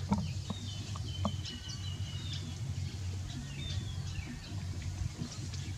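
Birds chirping: a series of thin, high calls with short falling glides, over a steady low hum. A few soft knocks come in the first second and a half.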